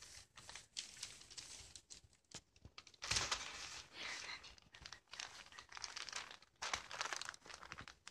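Newspaper covering a playpen floor crinkling and rustling under two kittens wrestling on it, in irregular bursts, the loudest about three seconds in.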